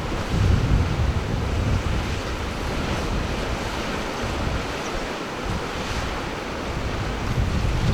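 Sea surf washing steadily, with wind rumbling on the microphone that eases off about two-thirds of the way through.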